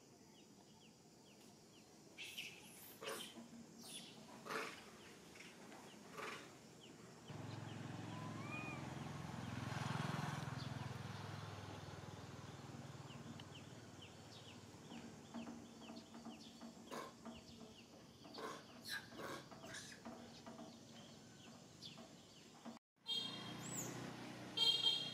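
Faint outdoor ambience: a motor vehicle passes, its low rumble swelling and then fading about a third of the way in, against scattered clicks and many short bird chirps. Near the end, after a brief drop-out, come a few louder high-pitched calls.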